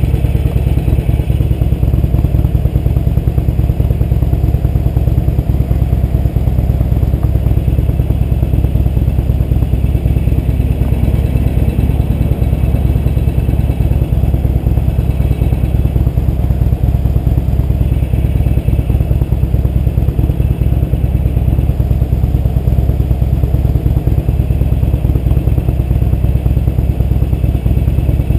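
2004 Harley-Davidson Sportster 883 Custom's air-cooled 883 cc V-twin idling steadily while the bike stands at a stop.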